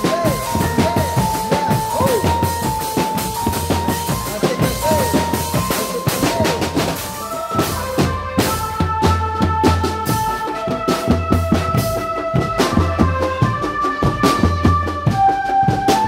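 Indonesian street drum band playing a fast, driving beat on bass drums and snare/tenor drums, with a melody of held notes stepping up and down in pitch above the drumming.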